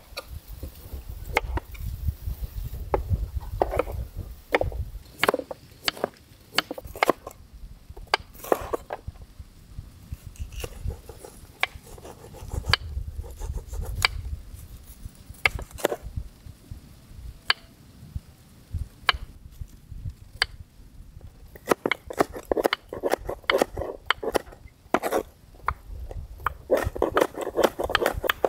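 Sharp, irregular knocks and clicks on wood, about one or two a second, growing denser and busier over the last several seconds.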